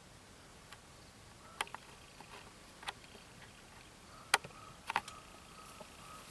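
A few sharp, separate clicks and taps against a quiet background, the loudest about four seconds in and a quick pair just after it.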